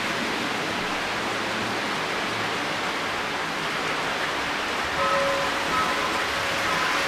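O gauge toy trains running on their three-rail track loops, a steady rushing rumble of wheels and motors. About five seconds in, several short, clear tones sound and stop.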